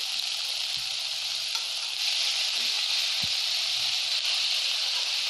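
Chopped onion, chillies and chana dal sizzling steadily in hot oil in a steel kadai, a little louder from about two seconds in.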